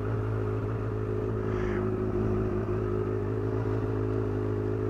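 Honda CBR1000RR Fireblade's inline-four engine idling steadily.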